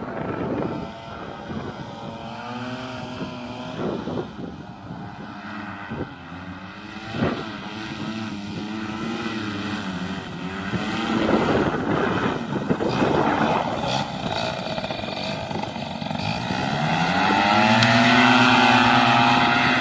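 AC Nitro 200 paramotor's engine and propeller droning overhead, the pitch wavering up and down as it flies in gusty wind. About 17 s in the pitch rises and the sound grows loudest as the paramotor passes close. Wind buffets the microphone early on.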